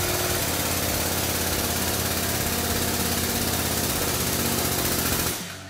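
Powered pump of a hydraulic shop press running steadily as the ram presses a new wheel bearing into a UTV bearing carrier knuckle, then cutting off suddenly near the end.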